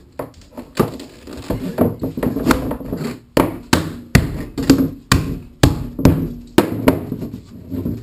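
Mallet blows knocking PVC pipe fittings onto a PVC frame: a series of sharp knocks, a few spaced ones at first, then a steady run of about two a second through the second half.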